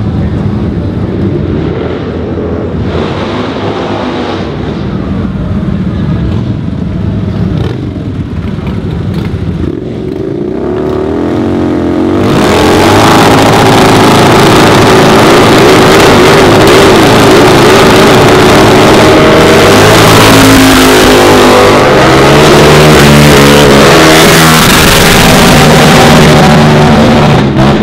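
Harley-Davidson V-Rod motorcycles with liquid-cooled V-twin engines revving as they ride by. From about halfway through, a custom V-Rod does a burnout: the engine is held at high revs, rising and falling, over the hiss of the spinning rear tyre, much louder than before. The noise stops suddenly just before the end.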